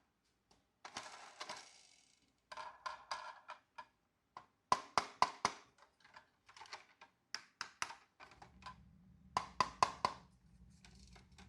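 Marbles rolling and clattering down a marble run, with quick runs of sharp clicks and short stretches of rolling. A low steady hum comes in about eight seconds in.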